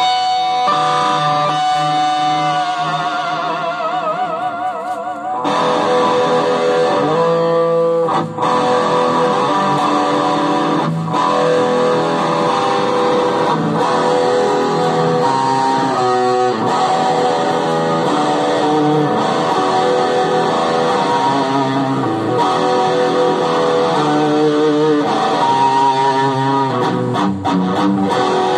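Solo electric guitar playing sustained notes and runs, with a held note wavering in vibrato about two to five seconds in.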